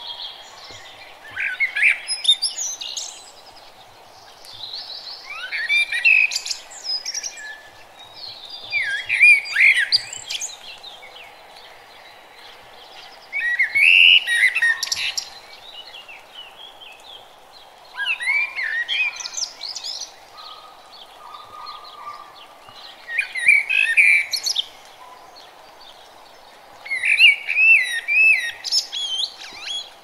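A songbird singing in warbled phrases of about two seconds, one roughly every four seconds, over steady low background noise.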